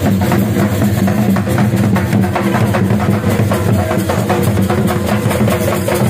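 Punjabi dhol drums beaten by several drummers in a fast, steady rhythm, with a steady low drone underneath.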